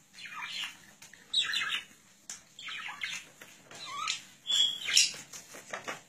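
Budgerigar chattering in a string of short, harsh squawks and chirps, about five bursts over a few seconds.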